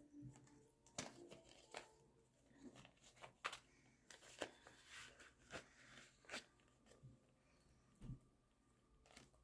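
Faint rustling and crinkling of paper dollar bills and a clear plastic zipper pouch being handled in a binder: a string of soft, irregular clicks and rustles about once a second.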